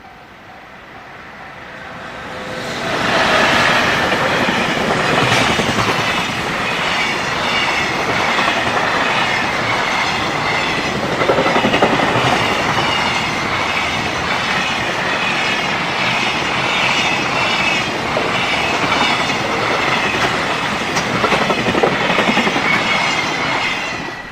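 Freight train passing over a level crossing at speed, a long run of loud wheel and rail noise with a rhythmic clickety-clack. It rises sharply about two seconds in and dies away near the end. The crossing's warning bell is heard ringing before the train arrives.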